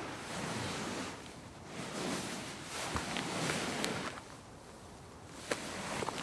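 A person shifting their weight on a couch: the upholstery rustles in two long swells, with a few small clicks and creaks, and another shift begins near the end.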